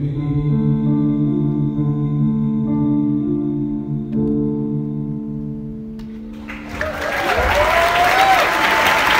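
The last held chords of a live song ring and fade out. About six and a half seconds in, the audience breaks into applause and cheering, with a few rising whoops.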